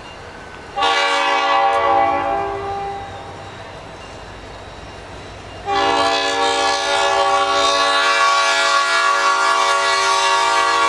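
Diesel locomotive's multi-chime air horn sounding two long blasts, as a train sounds for a road crossing: the first about a second in, fading away after a couple of seconds, the second starting just before the six-second mark and still held at the end. A low diesel rumble runs underneath.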